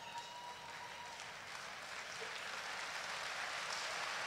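Audience applause, swelling steadily louder, with a single long high call from the crowd in the first second.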